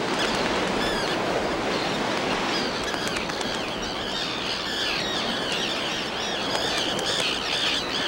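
Breeding colony of common terns calling: many short, overlapping calls over a dense steady hiss, growing thicker in the second half.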